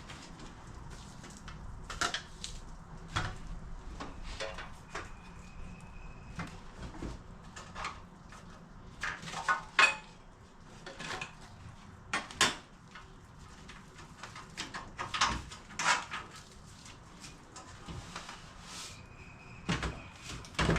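Irregular knocks, clacks and rustles of welding table parts and their packaging being lifted out of the box and handled, with a few louder clanks.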